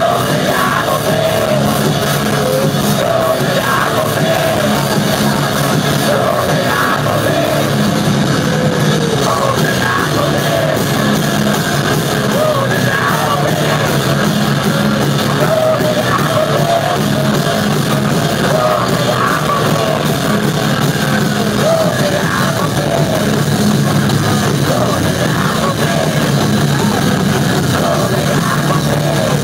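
Live rock band playing loud and without a break: drums and electric guitars, with shouted, yelled vocals over them.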